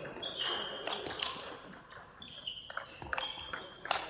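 Table tennis balls clicking off tables and bats in rapid, irregular hits, each click ringing briefly with a high ping; hits from more than one rally overlap.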